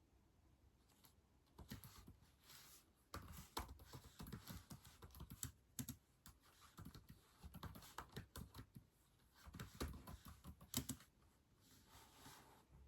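Typing on a keyboard: irregular runs of quick key clicks, starting about a second and a half in and fading near the end.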